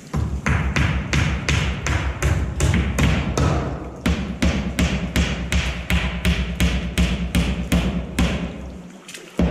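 Nails being driven into plywood framing in a fast, even run of about three to four strikes a second, over a steady low rumble, pausing briefly near the end before the strikes resume.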